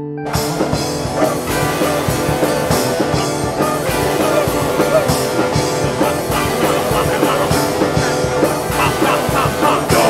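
Punk rock band playing: drums and guitar crash in together at the start and carry on at a driving pace over a held, organ-like keyboard.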